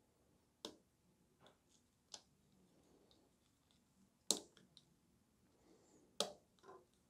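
Small plastic parts clicking and tapping as a spring-loaded plastic trigger is worked into an open gel blaster gearbox shell: a handful of sharp clicks, the loudest two about four and six seconds in.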